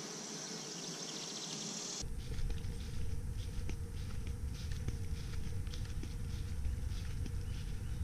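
Honey bees buzzing around an open hive frame for about two seconds, then an abrupt change to a steady low rumble of wind on a moving camera's microphone, with scattered light ticks.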